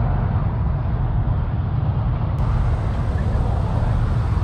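A motor vehicle engine running steadily, low-pitched and heavy in the bass.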